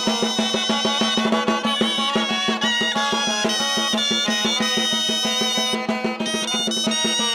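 Folk band playing live: a lively tune over a steady rhythmic drum beat, with a low drone held throughout.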